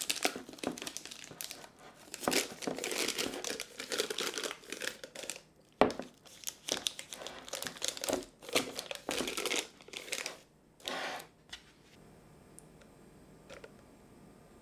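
Plastic piping bag crinkling as it is opened out and folded over the rim of a drinking glass, in irregular rustles with one sharp tap about halfway through. The rustling stops a few seconds before the end.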